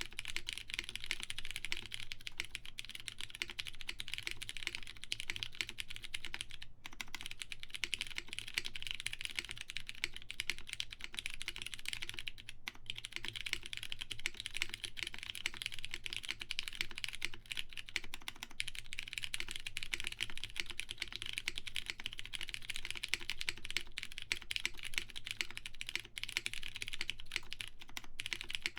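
Continuous fast typing on a plateless custom mechanical keyboard with lubed Cherry MX Brown tactile switches and GMK keycaps, with a couple of brief pauses.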